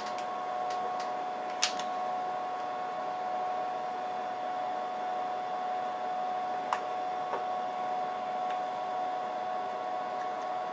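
Cooling fans of an HP 54845A Infiniium oscilloscope running steadily just after power-on: a constant whine over an airy hiss. A few sharp clicks sound over it, the loudest about a second and a half in.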